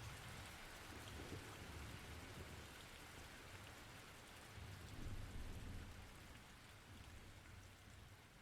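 Rain sound effect: a steady, faint hiss of rainfall, with a low rumble swelling about five seconds in, slowly fading out.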